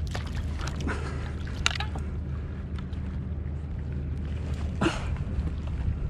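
Water sloshing and splashing beside a plastic fishing kayak, with a few short splashes, the clearest about two seconds and five seconds in, over a steady low rumble.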